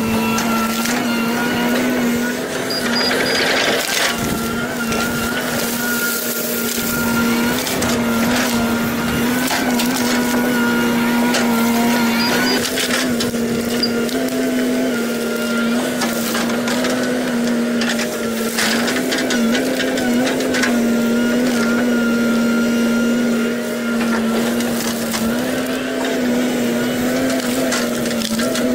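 Komatsu hydraulic excavator's diesel engine running steadily under load while it uproots trees, its drone stepping slightly up and down in pitch as the hydraulics work, with scattered short cracks and clicks.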